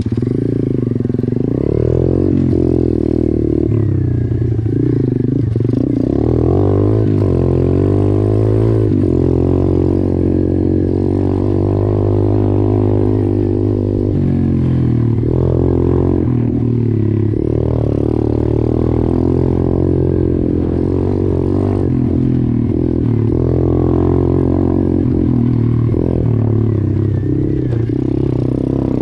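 YCF 125 pit bike's single-cylinder four-stroke engine running under way, its pitch rising and falling over and over as the throttle is opened and closed.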